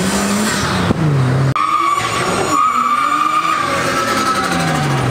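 An R33 Skyline GT-R's engine note falling as it comes off the throttle. Then tyres squealing in a high, steady screech for about two seconds as a car slides sideways, with an engine note dropping in pitch near the end.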